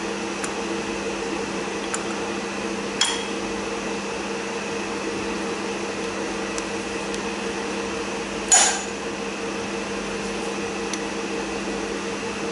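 Metal parts of a Delphi diesel high-pressure fuel pump knocking together as the pump head is fitted onto the housing: a sharp knock about three seconds in and a louder one about two-thirds of the way through, with a few faint ticks, over a steady hum.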